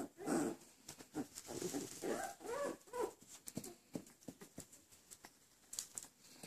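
Wire-haired miniature dachshund puppies giving a run of short whines in the first three seconds, followed by scattered light clicks and scuffles.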